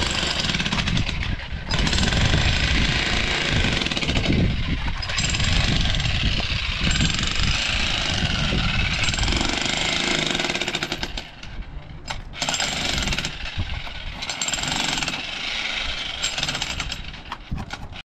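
Jackhammer hammering rapidly in long runs, with brief pauses around the middle.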